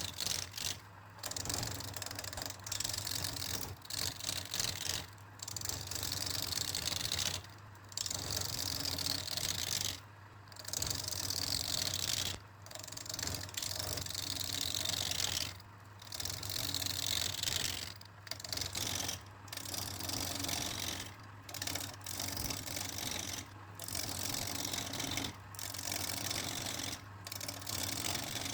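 Wood lathe running with a steady motor hum while a tool cuts or scrapes the spinning wood with a hiss. It comes in short stretches chopped apart every second or two, and for a few seconds in the middle the hiss falls in pitch.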